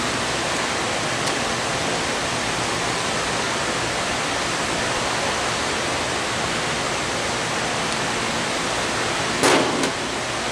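Steady loud rushing air noise, the constant background of the shop, with one short, sharp clatter about nine and a half seconds in.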